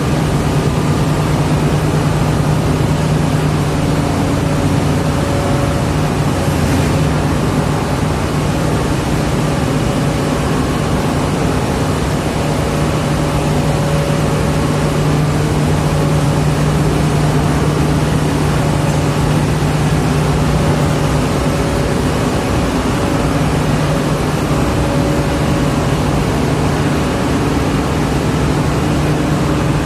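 A heavy diesel engine running steadily with an unbroken low drone, during the unloading of an excavator from a cargo ship.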